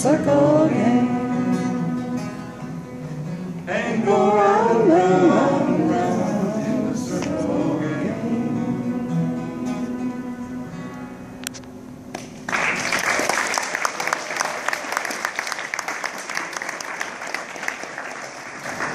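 Group singing with acoustic guitar and violin finishing the last line of a folk song, fading on a held final note. About two-thirds of the way through, the audience breaks into sudden, steady applause.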